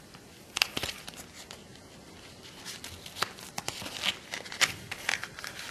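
Plastic blister pack of a nail-art dotting tool crinkling and crackling as it is handled and pulled open. The crackles are sharp and irregular, a few early on and coming thicker from about halfway.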